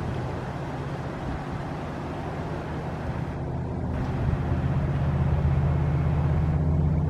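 Diesel commuter-train locomotive engine running with a steady low hum, growing louder about halfway through.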